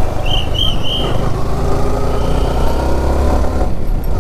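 Yamaha R15 V4's 155 cc single-cylinder engine pulling away and accelerating, its note rising over the second half, with wind rush on the bike-mounted microphone. Three short high beeps sound in the first second.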